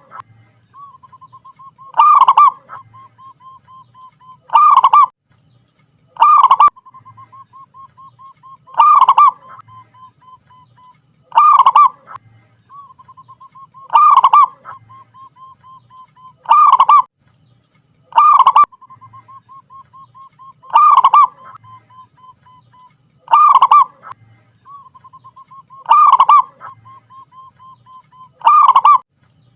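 Zebra dove (perkutut) cooing: a loud call repeated about every two and a half seconds, with a soft, rapid run of small notes between the calls.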